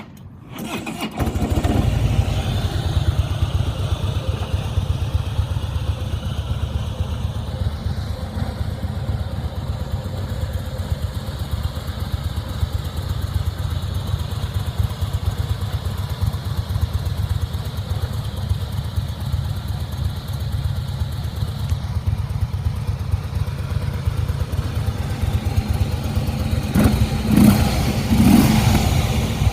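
Harley-Davidson Softail Slim's 1690cc V-twin starting on the electric starter about a second in, then idling with a steady low throb. It is revved in a few short blips near the end.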